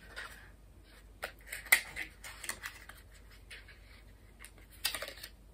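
Small cardboard packaging being handled and opened by hand: light scraping and rustling with a few sharp clicks and taps as a miniature perfume spray is worked out of its little box.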